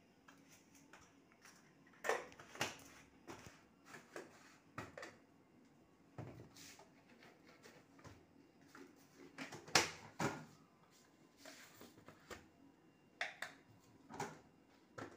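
Faint, scattered clicks and knocks of a spoon and kitchen containers being handled around a steel mixer jar, at irregular intervals, the loudest knock about ten seconds in.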